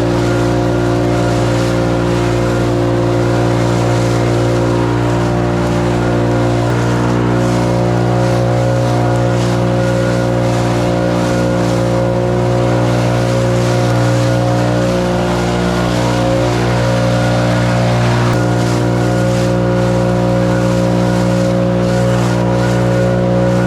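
Small gasoline engine of lawn equipment running steadily at full throttle, working on clearing and mulching leaves.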